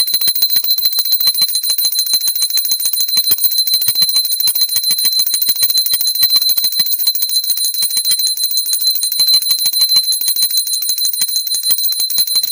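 A temple hand bell rung rapidly and without pause: many quick strikes each second over a steady high ringing.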